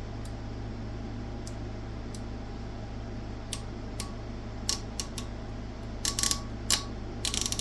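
Light clicks and taps from handling an oscilloscope probe. They are scattered at first and bunch up in a quick cluster in the last two seconds, over a steady low hum.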